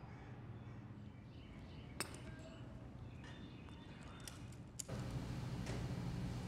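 Faint background ambience with a sharp click about two seconds in and a few light clinks, then, near the end, a louder steady hum and hiss of room tone in a large hall.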